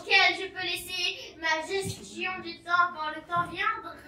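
A child's voice, high-pitched and sing-song, in short phrases with brief gaps between them.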